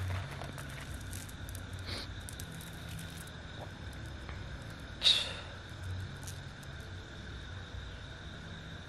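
Quiet outdoor night ambience: a steady high-pitched drone with a faint low hum underneath. One brief sharp sound comes about five seconds in, and a softer one a few seconds earlier.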